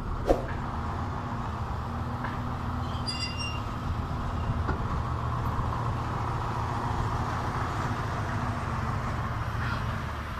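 Diesel engine of a Doosan 225 crawler excavator running steadily as it digs and loads a dump truck, with one sharp knock just after the start.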